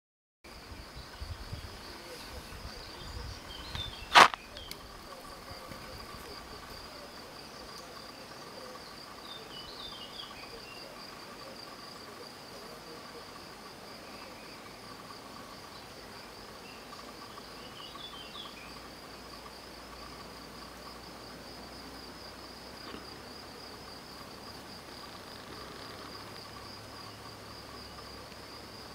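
Insects trilling outdoors, a steady high-pitched pulsing trill with a weaker lower tone beneath it and a few brief chirps. A single sharp click about four seconds in.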